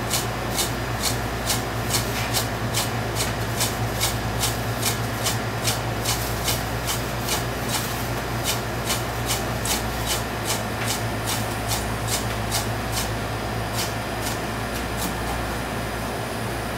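Heavy honekiri knife chopping straight down through a skin-on pike conger fillet onto the cutting board in quick, even strokes, about two clicks a second, growing sparser near the end. This is bone-cutting: the fish's many fine bones are sliced through so they can be eaten. A steady low hum runs underneath.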